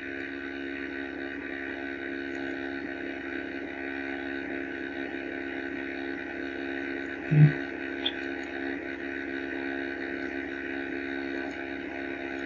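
Steady electrical hum with several fixed pitches. A short low thump comes about seven seconds in, and a faint click follows just after.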